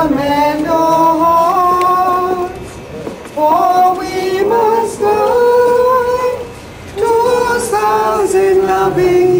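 Mourners singing a slow hymn, women's voices leading, in long held notes across three phrases with two short breaks between them.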